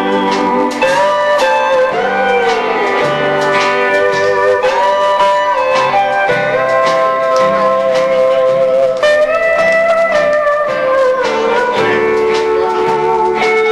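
Country band playing an instrumental break led by steel guitar, its notes sliding up and down between held tones, over strummed acoustic guitar and bass.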